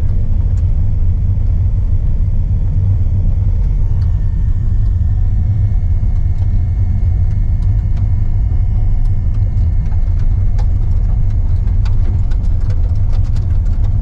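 Steady low rumble of a moving car heard from inside the cabin: engine and tyre noise on the road, with a few light ticks in the later part.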